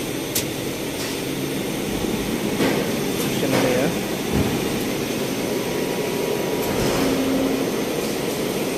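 PET bottle blowing machine running just after power-on: a steady fan noise from its preform heater, with a few sharp clicks.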